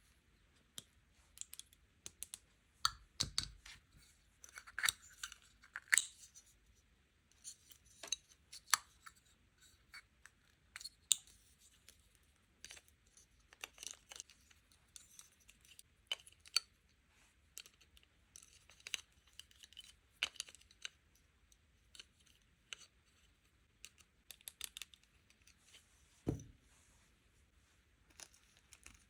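Close-up unboxing of sweets and toy packaging: irregular small clicks, taps and brief rustles of plastic packaging, with a soft thump about three seconds in and another near the end.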